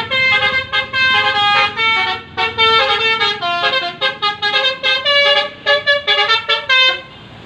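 Bus telolet horn, a multi-tone air horn, playing a fast tune of short stepping notes and stopping about seven seconds in.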